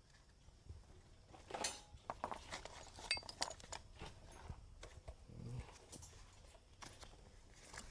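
Irregular clicks and light knocks of tools and small metal parts being handled while working on a starter motor. The sharpest come about a second and a half in and around three seconds in, with a dull thud a little past five seconds.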